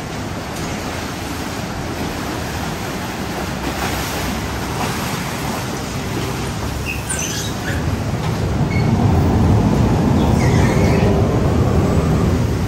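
Canal boat under way: a steady engine rumble with rushing water and wind buffeting the microphone, louder from about eight seconds in. A few short high squeaks cut through twice.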